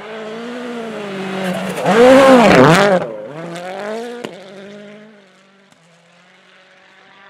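Rally car engine approaching at speed and passing close, revs rising and falling sharply as the driver works the throttle, loudest about two to three seconds in, then fading as the car drives away. A single sharp bang sounds just after four seconds in.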